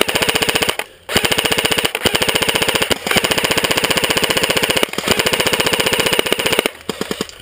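Airsoft rifles firing long full-auto bursts, a rapid even rattle that breaks off briefly about one, two, three and five seconds in, then thins to a few single shots near the end.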